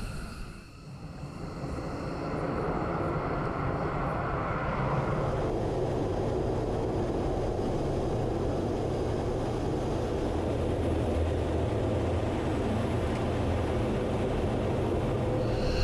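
Twin Pratt & Whitney F100 turbofan engines of an F-15 Eagle running: a steady jet rush over a low rumble, which swells up about a second in and then holds steady, heard for much of it from inside the cockpit.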